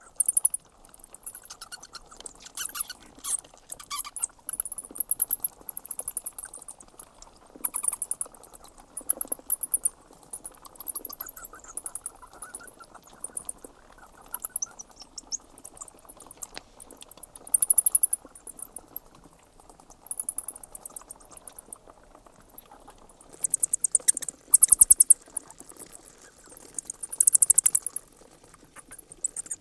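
Bats chittering: bouts of rapid, very high-pitched squeaks, each lasting a second or two, with short pauses between.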